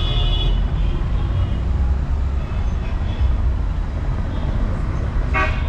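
Low, steady rumble of a vehicle moving slowly through city street traffic, heard from inside with the window open. A short pitched sound, a horn or a call, cuts through near the end.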